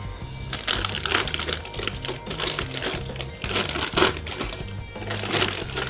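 Clear plastic parts bag crinkling on and off as it is handled, loudest about four seconds in, over background music.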